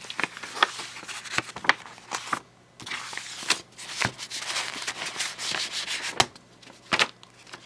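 Paper rustling and sliding as a mailed envelope is opened and a catalog and loose papers are pulled out, with many small sharp crackles of handled paper.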